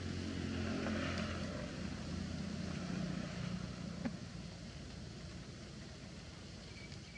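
A steady low engine hum that fades after about four seconds, with a single sharp click about four seconds in.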